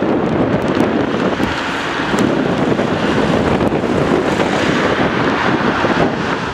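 Steady jet noise from the departing Tu-134A-3's Soloviev D-30 low-bypass turbofans, mixed with wind buffeting the microphone. The sound cuts off abruptly at the very end.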